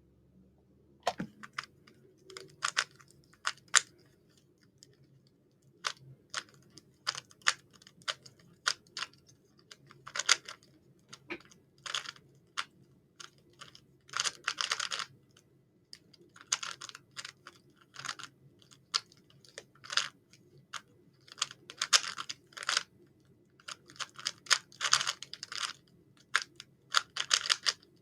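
3x3 Rubik's cube being turned quickly in the hands during a speedsolve: quick flurries of clicking and rattling as the layers turn, broken by short pauses.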